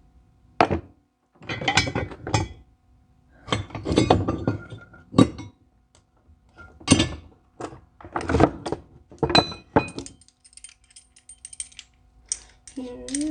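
Metal parts and tools being handled and set down: a dozen or so irregular clanks and knocks, with a faint steady hum underneath.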